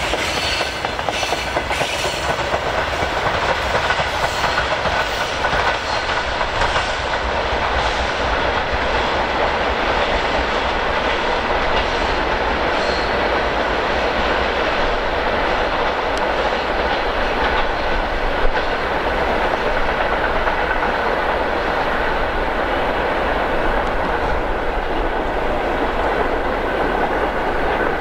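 Long freight train of open gondola wagons rolling past, its wheels clattering steadily over the rail joints.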